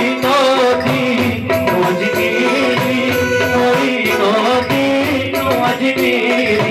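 Live Sufi devotional song: male voices singing over tabla drumming and a keyboard holding steady notes.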